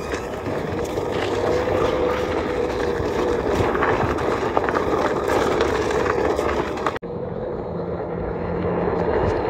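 Small camera drone's propellers humming steadily, with an abrupt cut about seven seconds in.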